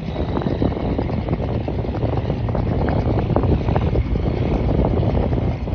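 A boat's engine running under way: a steady, loud low rumble.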